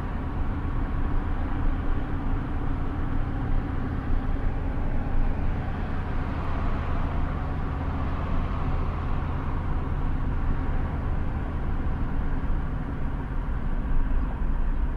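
Steady engine and road rumble of a car driving. A broader hiss swells and fades about halfway through.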